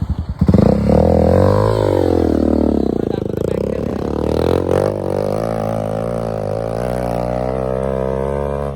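Hero Impulse's single-cylinder motorcycle engine revving up and down under load on a steep dirt climb, then holding a steadier, slowly rising pitch.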